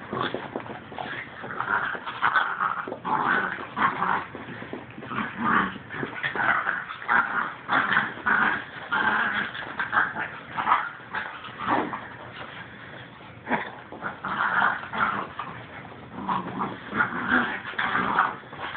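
A Jack Russell terrier and a miniature pinscher play-fighting, growling at each other in short irregular bursts.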